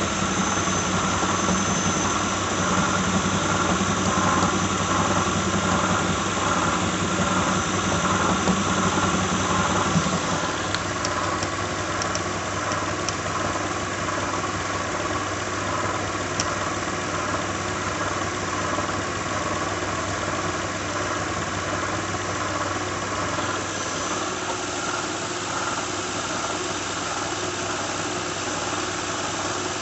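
2006 Lincoln Town Car's 4.6-litre V8 idling with a steady whirring squeal and rattle from its failing harmonic balancer. About a third of the way in the low part of the sound drops away and it becomes slightly quieter.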